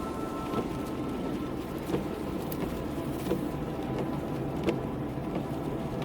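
Car running, with steady engine and road noise and a light knock about every one and a half seconds.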